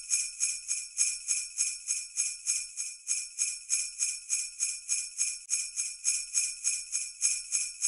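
Sleigh bells shaken in a steady rhythm, about four shakes a second.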